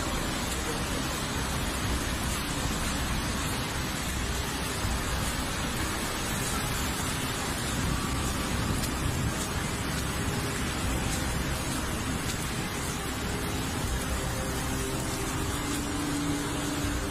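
Muddy floodwater rushing through a concrete channel in a flash flood: a steady, even rushing roar of water without a break.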